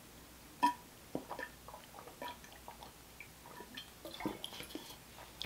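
A man drinking seltzer from a bottle: a string of soft swallowing gulps and small wet mouth clicks.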